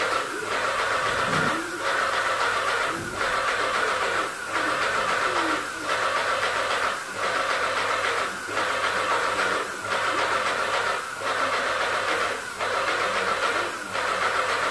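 Paint sprayer hissing steadily while spraying paint, the hiss dipping briefly about every 1.3 seconds.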